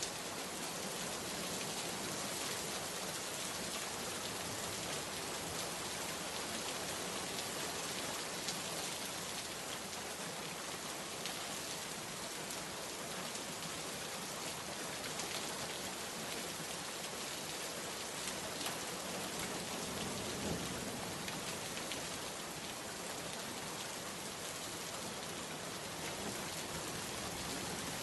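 Steady rain falling, an even hiss with many fine drop ticks, and a brief low rumble swelling about twenty seconds in.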